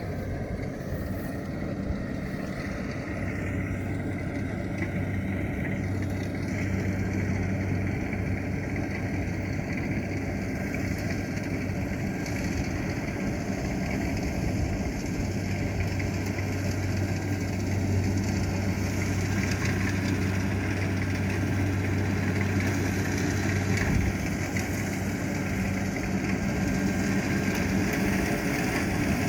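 Farm machinery diesel engine running steadily with a low, even hum, growing slightly louder about seven seconds in.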